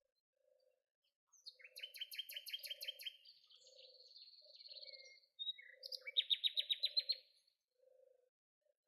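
Songbirds singing rapid trills of quickly repeated high notes in two loud phrases, with a thinner buzzy trill between them. Faint low notes repeat steadily underneath.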